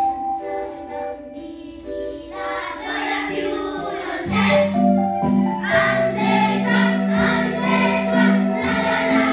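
A class of schoolchildren singing together as a choir with instrumental accompaniment. An instrumental melody of short, steady notes plays first, the children's voices come in about two seconds in, and a lower accompaniment joins at about four seconds.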